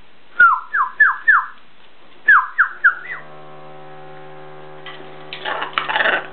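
Blue-and-yellow macaw giving a quick run of four short whistled calls, each falling in pitch, then after a short pause three more. A steady hum starts about three seconds in, and there is a rustle near the end.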